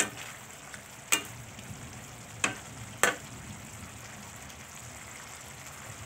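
A spatula stirring intestines in a thick yellow spice sauce in a stainless steel frying pan, knocking sharply against the pan four times in the first three seconds. Under it, the sauce sizzles steadily as it cooks down to thicken.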